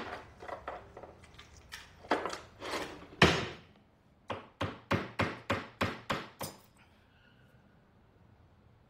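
Clattering and rattling as a kitchen drawer is rummaged, a loud knock just past three seconds, then a hammer tapping a nail into the wall about seven times in quick, even succession, to hang a picture.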